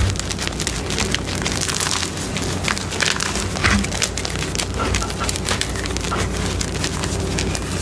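Chunks of crunchy reformed gym chalk being crushed and crumbled by hand: a dense, continuous run of small crackling crunches over soft powdery rustling.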